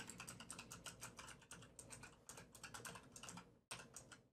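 Faint, fast typing on a computer keyboard: a rapid run of key clicks with a short pause near the end.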